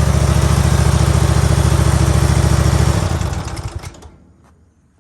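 Briggs & Stratton Vanguard engine in a mini skid steer running steadily, then shut off about three seconds in and winding down to a stop within about a second.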